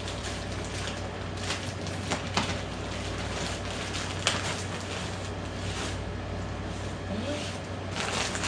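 Plastic bags rustling and crinkling in irregular short bursts as items are handled and pulled out of a suitcase, over a steady low hum.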